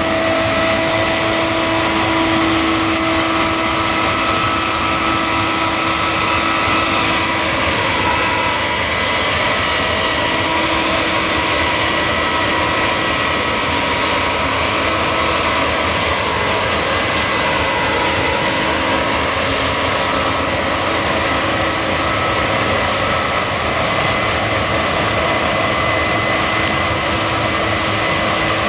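Case combine harvester running steadily while harvesting barley, its engine and threshing machinery giving a constant drone with high steady whines. The whines sag in pitch briefly twice, about a third and two-thirds of the way through.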